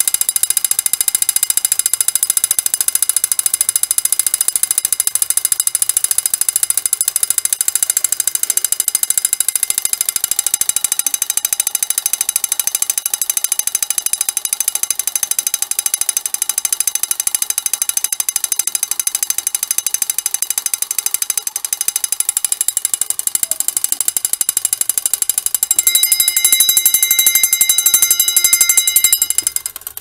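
Emdeko 115-A-FT spring-wound fixed-temperature fire alarm bell ringing loudly and continuously, its clapper striking in very fast strokes. Heat on its thermal disc has released the wound spring, and the bell keeps ringing until the spring winds down. Near the end a clearer ringing note comes through, and the level drops off just at the end.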